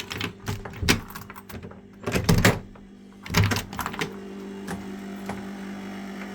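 ProBreeze dehumidifier running with a steady, pitched hum that the owner finds too noisy for a unit only a few months old. A series of sharp knocks and thumps sits over the hum, the loudest about two and three and a half seconds in.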